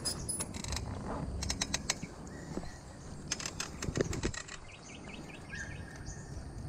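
Rapid ticking of a bicycle's freewheel in short runs as the bike rolls without pedalling, with faint bird chirps.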